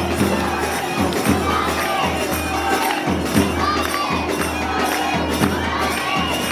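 South Indian temple procession music: drums beating a steady rhythm under a melody that slides up and down over a held drone note, with a crowd behind it.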